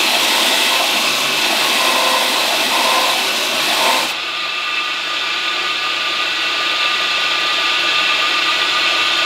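Belt grinder grinding the flats of a forged Damascus steel billet, a loud steady hissing grind. About four seconds in the steel comes off the belt, the hiss falls away, and the grinder runs on.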